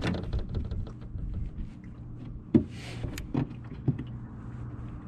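A few short knocks and clicks, three of them between about two and a half and four seconds in, as someone fumbles at a cooler lid while sitting on the cooler. A steady low rumble runs underneath.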